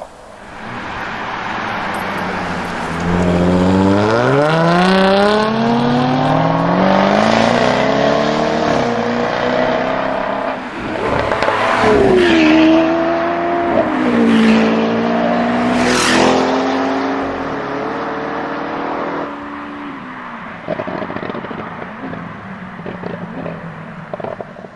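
Jaguar F-Type SVR's supercharged V8 accelerating hard: the exhaust note climbs steadily in pitch, drops at a gear change, and climbs again. Several sharp exhaust cracks come in the middle, then the engine note eases and fades near the end.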